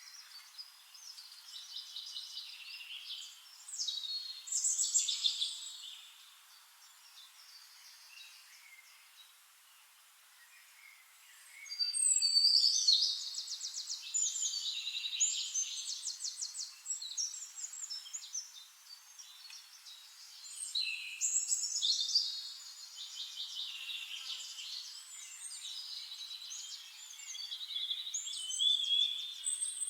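Several birds singing in a dawn chorus: high, fast trilled song phrases that come and go, with a quieter lull about a third of the way in.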